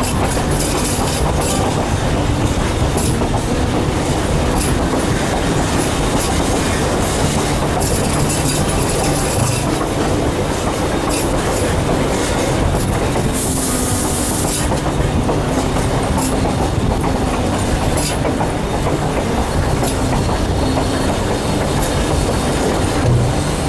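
Durango & Silverton narrow-gauge train rolling steadily along the rails, a continuous rumble of wheels and cars. A brief hiss comes about halfway through.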